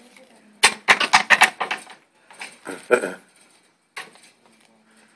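Trading cards being handled and laid down on a tabletop: a quick run of sharp snaps and taps about a second in, another cluster around three seconds, and a single tap near four seconds.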